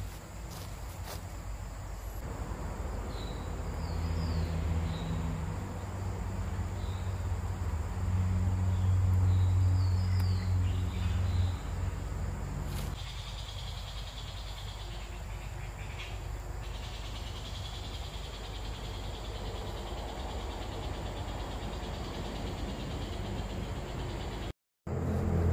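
Outdoor ambience of birds chirping and insects, over a low steady hum that swells and fades. A high, steady insect buzz takes over in the second half.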